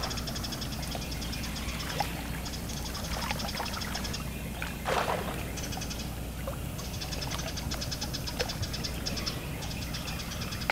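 Natural river ambience: a chorus of high, rapidly pulsing trills from calling wildlife goes on throughout over a steady low hum, with a couple of soft water splashes, one about two seconds in and one about five seconds in.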